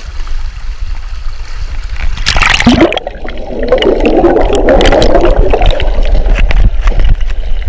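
Moving water heard as a camera is dunked: a splash a little over two seconds in as it goes under, then a muffled, dense bubbling gurgle with scattered clicks, heard underwater, over a steady low rumble.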